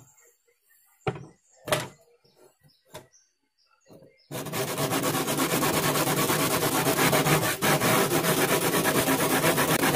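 A few light knocks, then from about four seconds in a steel file rasping rapidly and continuously across the teeth of a hand saw as they are sharpened.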